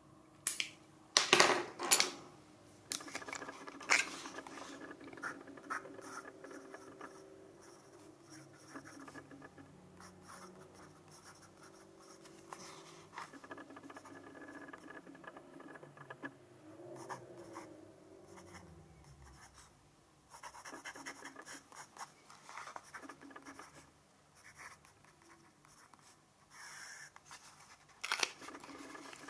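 Fountain pen nib scratching faintly across Fabriano Ecoqua 90 g/m² paper while writing, in stretches with short pauses. A few sharp clicks and knocks from handling the pen come in the first two seconds and again near the end.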